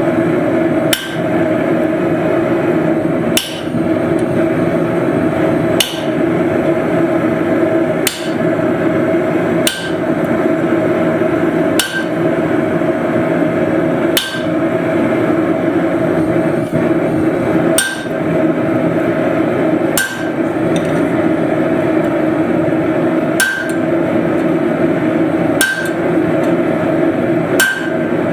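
Steel hammer blows driving a punch through hot steel tong stock, a single strike about every two seconds, each with a short metallic ring, over a loud steady drone.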